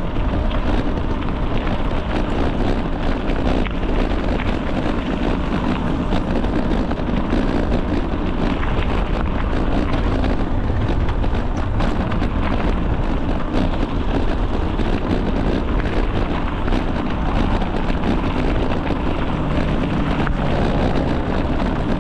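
Wind buffeting the microphone of a camera carried on a moving bicycle: a loud, steady rushing rumble, with small irregular knocks running through it.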